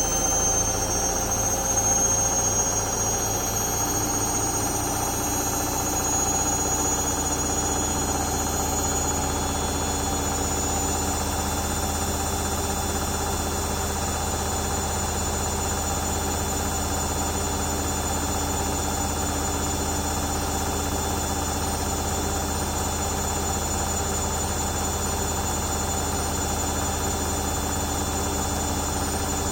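Hoover Dynamic Next washing machine on its final spin at 1000 rpm: a steady drum-and-motor hum with a high motor whine that rises slightly over the first several seconds, then holds steady at full spin speed.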